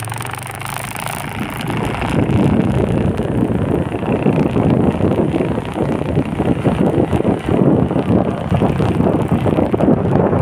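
Wind buffeting the microphone of a rider moving along a road: a rough, fluctuating rush that gets louder about two seconds in.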